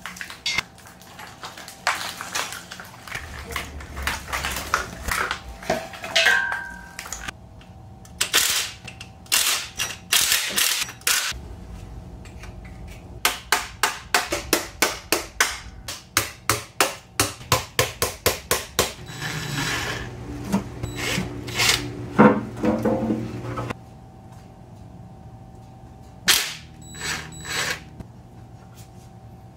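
Hand-tool work on a hoisted engine: scattered metal clanks and rattles, and in the middle a run of sharp metal knocks, about three a second, for several seconds.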